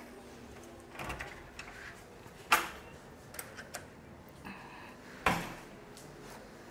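A front door being opened and its knob and latch worked: a few separate sharp clicks and knocks, the loudest about two and a half seconds in and another about five seconds in, with fainter ticks between.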